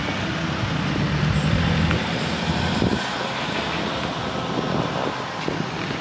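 Cars in a slow procession driving past one after another, a steady low hum of engines and tyres on the road, loudest in the first few seconds.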